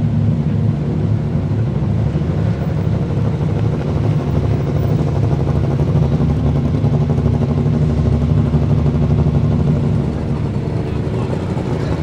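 Race-prepared time attack car's engine idling loudly with a choppy, uneven beat, holding steady with no revving.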